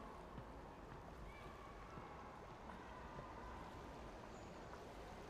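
Faint, steady background ambience: a low rumble and hiss, with a few faint thin tones coming and going.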